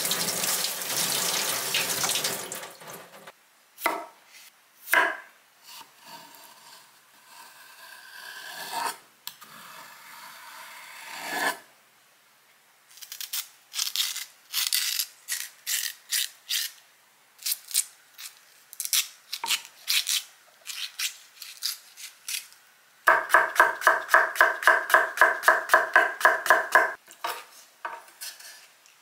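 Kitchen tap water running over cucumbers for about three seconds, then a knife scraping the seeds out of a halved cucumber on a wooden board with scattered scrapes and clicks. Near the end comes fast, even knife chopping on the wooden cutting board, about four strokes a second for about four seconds.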